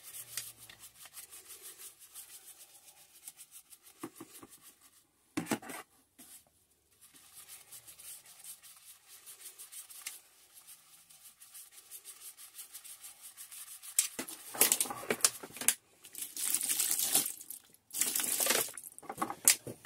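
Small hand brush scrubbing a greasy metal drill part soaked in neat degreaser: a quick run of short, scratchy strokes. In the last six seconds come several louder, harsher bursts of noise.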